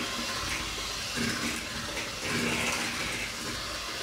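Handheld electric mixer running, its beaters whisking eggs and sugar in a bowl: a steady whirring hiss that swells a little twice.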